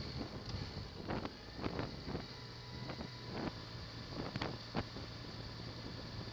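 Motorcycle engine running at low, steady revs, heard from the rider's own bike, with wind noise on the microphone. Several short knocks and thumps are scattered through it.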